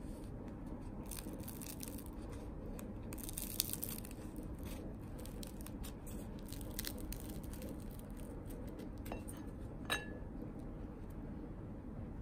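Crusty buttered toast bitten and chewed close to the microphone, with crisp crackling crunches in the first few seconds. A single sharp click with a brief ring comes about ten seconds in.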